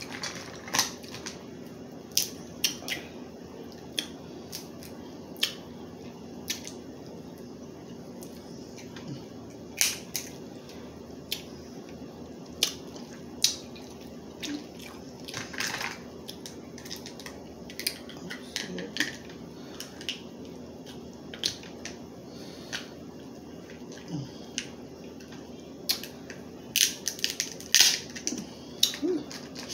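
Crab leg shells cracked and snapped open by hand: irregular sharp cracks every second or two, with a quicker run of cracks near the end.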